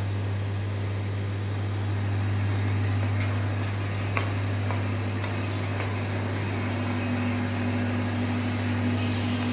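Steady low electrical hum of an automatic wire-harness crimping and soldering machine standing powered on, with a few faint clicks and a higher steady tone that grows a little stronger near the end.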